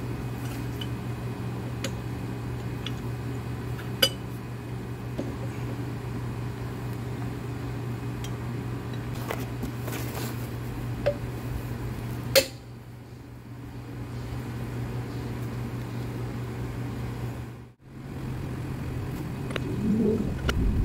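Sockets and a hand-cranked torque multiplier clinking now and then as they are fitted to a semi truck's wheel lug nuts, over a steady low mechanical hum.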